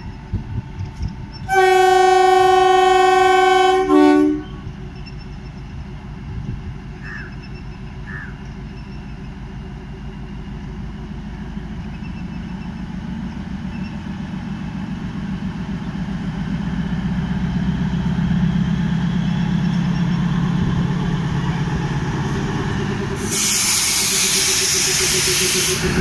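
A DEMU (diesel-electric multiple unit) sounds its horn: one steady blast of about two and a half seconds, then a short toot. The train's diesel engine and wheel rumble then grow steadily louder as it approaches, and a loud hiss sets in suddenly near the end as the leading coach draws alongside.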